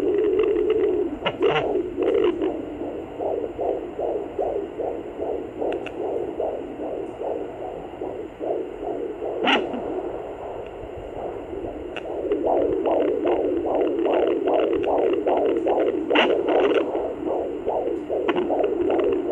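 Fetal heartbeat of a 20-week baby through a Sonoline B handheld fetal doppler: a fast, even galloping whoosh of about two to three beats a second. It fades somewhat in the middle and comes back stronger after about twelve seconds. A few sharp scratchy crackles break through now and then.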